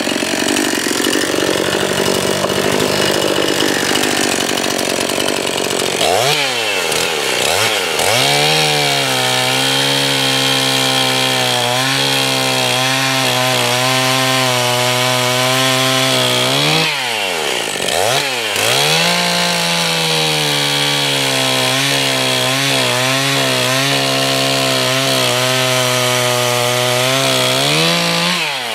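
Two-stroke chainsaw with a muffler mod running at high throttle while cutting a log, the engine note holding steady for long stretches. The throttle drops and comes back up briefly a few times: about six seconds in, twice around the middle, and near the end.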